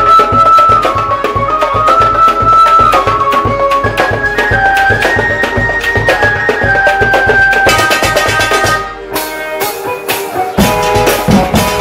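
Patrol music drum ensemble playing fast, driving drumming under a stepwise melody line. Near the end the low drums drop out for about a second and a half, then come back in with heavy strikes.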